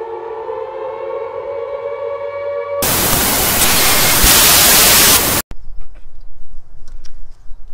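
A civil-defence air-raid siren wailing on a steady pitch. About three seconds in it gives way to a loud burst of TV static hiss lasting about two and a half seconds, which cuts off suddenly. A few faint clicks and knocks follow.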